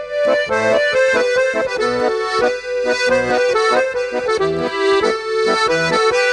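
Instrumental background music: a held melody line over a bass part that changes notes throughout.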